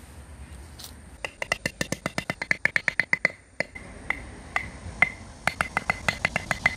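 Rapid hammer blows on a metal tent peg driving it into the ground, about seven strikes a second with a metallic ring, with a short lull midway before the fast strikes resume.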